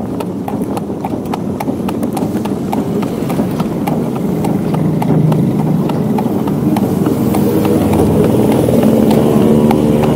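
Horse's hooves clip-clopping on an asphalt street in a steady trot rhythm as it pulls a carriage, with the carriage's rumble underneath. From about halfway through, a motor vehicle's engine hum rises and grows louder over the hoofbeats.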